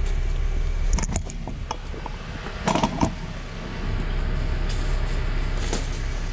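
Steady low hum of a Honda Civic's engine idling. A few short clicks and scuffs from footsteps and a tape measure being handled come about one second in, around three seconds and near the end.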